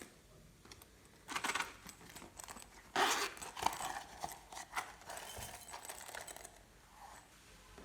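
Glossy slime being squished and pressed by hand, making bursts of sticky clicks and crackling pops. There are three bursts, the loudest about three seconds in.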